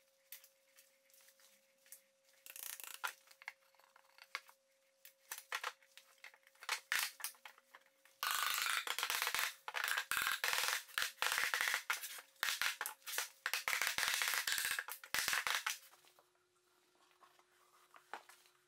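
Knocks and scrapes of MDF panels being handled and marked, then about eight seconds of loud, dense scraping and knocking as the box is worked with a white mallet.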